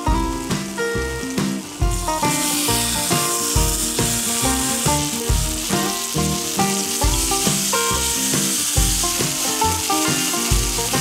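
A beef ribeye steak and garlic cloves sizzling in hot grapeseed oil in a frying pan; the sizzle grows much louder about two seconds in, as the steak sears. Background music with a steady beat plays throughout.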